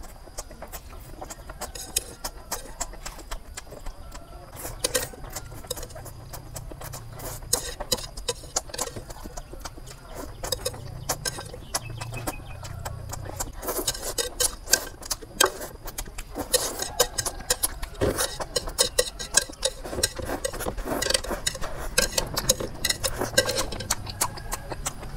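A person slurping instant noodles and chewing, close to the microphone: a long run of wet slurps and smacking mouth noises, busier in the second half.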